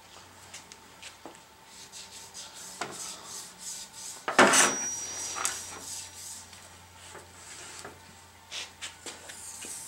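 Lathe saddle being shifted on its oiled cast-iron bed ways: irregular metal rubbing and scraping with scattered clicks. About four and a half seconds in there is one loud sharp metal clank that rings briefly.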